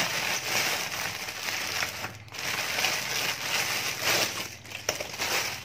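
Clear plastic packaging bag crinkling and rustling as hands unwrap and pull items out of it. There is a brief lull about two seconds in, and the sound dies down near the end.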